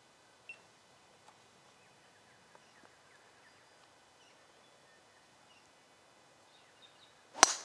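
A single sharp crack of a golf club striking the ball near the end, over a faint outdoor background with a few small bird chirps.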